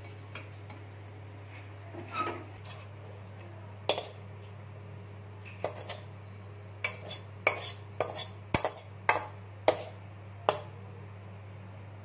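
Metal spatula scraping and clinking against a wok and a stainless steel bowl as the cooked food is served out: scattered sharp clicks and scrapes, sparse at first and coming thick and fast in the second half, over a steady low hum.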